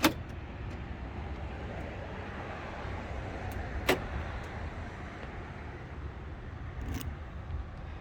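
BMW 635CSi central door locks clicking as the doors are locked and unlocked with the key from the passenger side: three sharp clicks, near the start, about four seconds in and about seven seconds in, over a steady low background rumble.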